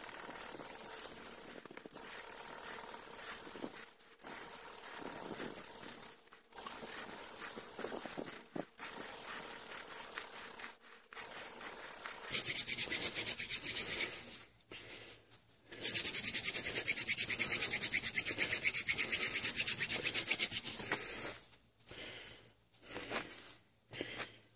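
Hand-drill friction fire: a wooden spindle spun between the palms grinds in a fireboard notch with a rubbing, rasping hiss. For about the first half it comes in passes of about two seconds with short breaks as the hands return to the top. From about halfway it turns into a louder, faster, continuous hard push of about nine seconds, smoking as it drives for an ember, then ends in a few short scrapes.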